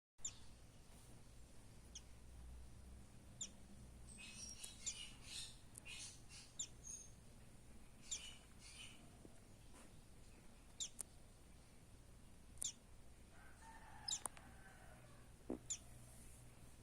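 Buff-banded rail chicks peeping: thin, high calls that drop in pitch, repeated every second or two, with a quicker flurry of chirps a quarter of the way in and a lower, rougher call near the end.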